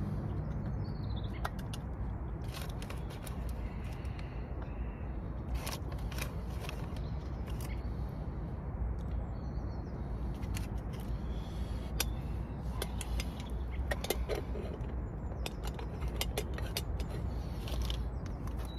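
Camp cooking gear being handled: scattered light metallic clicks and knocks over a steady low rumble, with a few faint bird chirps.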